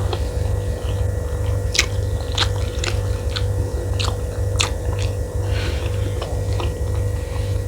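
Close-miked chewing of a mouthful of fried rice, with sharp wet mouth clicks about twice a second through the middle, over a steady low hum.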